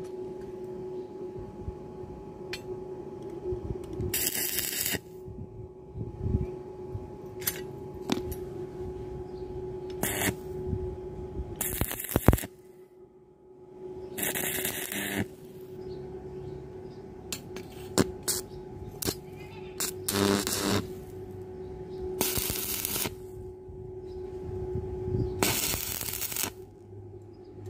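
Workshop sounds of metal parts being handled: scattered metallic clinks and taps, and about seven short bursts of hissing noise a few seconds apart, over a steady hum.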